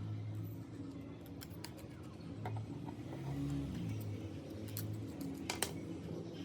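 Light clicks and taps of small repair tools handling phone parts, a few scattered ones with a sharper click near the end, over soft low background music.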